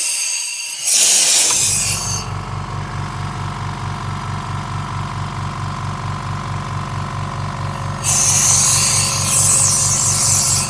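Compressed air hissing out of an open tube from a Black & Decker BXCMX106HE oil-free air compressor, in blasts. About a second and a half in, the compressor's motor starts and runs with a steady, rapid pulsing as it refills the tank. More blasts of air hiss over it near the end.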